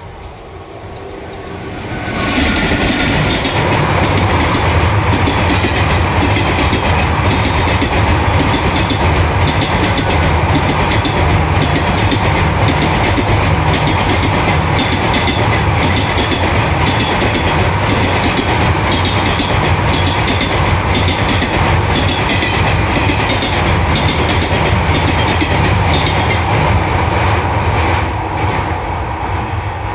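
Passenger train crossing a steel truss railway bridge: a heavy rumble with rhythmic wheel clatter over the rail joints. It swells up sharply about two seconds in and eases off near the end.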